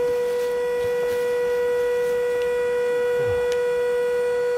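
Electric air compressor running steadily, pumping an inflatable boat's air-pressure floor up toward 0.7 bar, with a constant loud whine that does not change in pitch.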